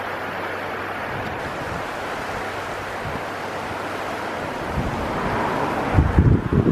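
Steady outdoor rushing noise, with wind gusts buffeting the microphone and getting stronger near the end.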